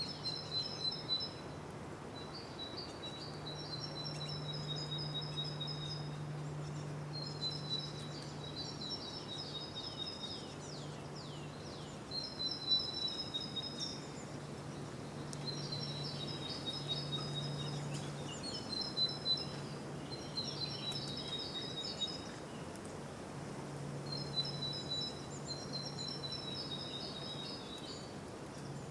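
Birdsong: a small bird repeating a short, high, rapid trilled phrase every couple of seconds, over a steady low hum of background ambience.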